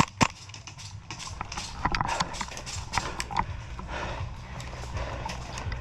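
Two sharp snaps right at the start, then irregular crunching footsteps through leaf litter and brush on a wooded field.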